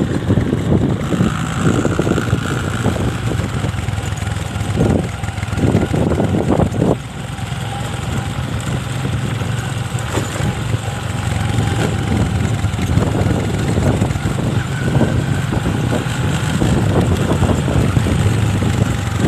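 A small motorcycle's engine running steadily at low revs as it is ridden slowly, with a few rougher rumbling spells about five to seven seconds in.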